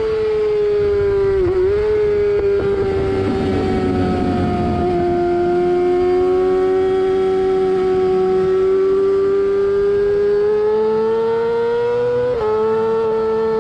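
Yamaha R6's inline-four engine held at very high revs, a steady high-pitched scream. The pitch dips briefly about a second and a half in, sags slightly through the middle, then climbs again near the end.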